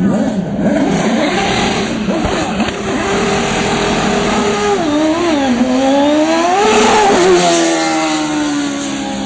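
Open-wheel race car's engine revving hard, its pitch wavering up and down and climbing to a peak about seven seconds in, then falling steadily as the car passes by.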